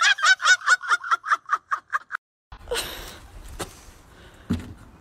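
Hard, high-pitched cackling laughter, about eight quick pulses a second, fading and cut off about two seconds in. Then a quieter stretch of outdoor background with a few faint knocks.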